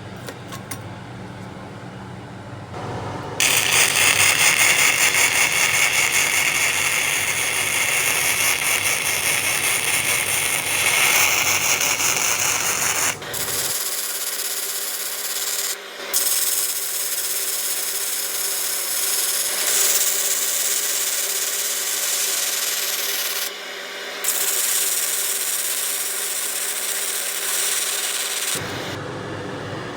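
Abrasive power tool grinding steel: a loud, steady, high grinding noise that starts about three seconds in and stops and restarts abruptly several times.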